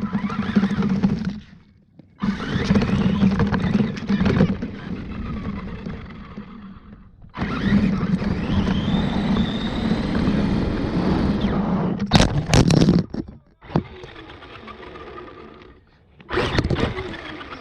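Radio-controlled truck driving in spurts of a few seconds. Each spurt has a steady low motor hum under the rattle and scrape of the truck over the ground, and each stops abruptly. Several sharp knocks come about twelve seconds in.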